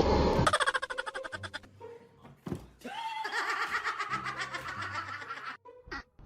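Bursts of laughter, in rapid pulsing runs: a short run at the start and a longer one from about three seconds in.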